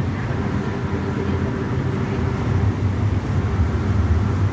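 Low, steady drone of a car ferry's engines and propellers working as the vessel comes in to dock, growing a little louder about halfway through.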